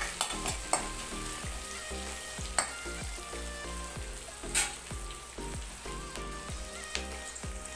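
Sliced shallots, curry leaves and green chillies sizzling steadily in hot oil in a kadai, stirred with a metal spoon at first, with a few sharp clicks over the sizzle.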